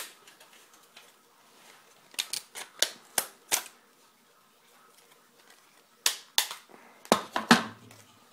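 Sharp clicks and clacks of a dismantled Xbox's hard plastic and metal parts being handled and pulled apart by hand. They come in short bursts of a few clicks each, the loudest near the end.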